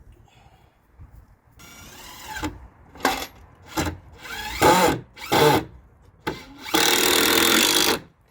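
Power drill driving screws, run in short trigger bursts with the motor whine rising and falling, then one longer run of about a second near the end.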